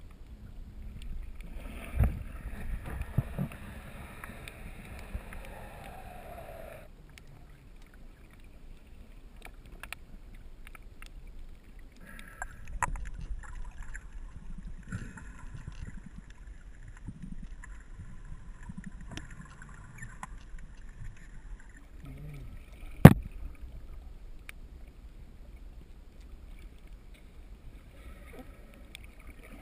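Muffled underwater sound through a GoPro's waterproof housing: a constant low rumble of moving water, with the whine of a distant boat motor coming and going in two stretches. A single sharp knock on the housing about three-quarters of the way through is the loudest sound.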